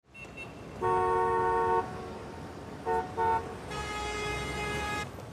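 Vehicle horns honking over street traffic noise: one long honk about a second in, two short beeps near three seconds, then a brighter, longer honk.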